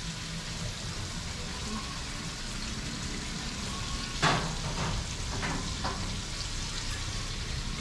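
Curry masala frying steadily in a pot, with hot water just added, as it cooks down for a Guyanese curry. A sharp clack about four seconds in, followed by a few lighter knocks.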